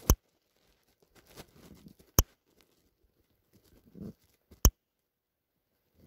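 Fingers tapping and handling a smartphone, picked up by its own microphone: three sharp taps about two seconds apart, with soft rustling between them.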